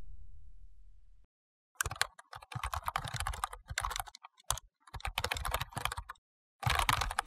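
Keyboard typing sound effect: rapid runs of key clicks in four bursts with short pauses between them, starting about two seconds in, after the last of a music sting dies away in the first second.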